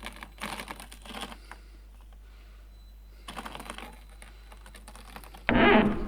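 Bursts of small rapid clicks and clatter from a 1/18-scale RC rock crawler scrabbling over rock, with a louder rough clatter near the end.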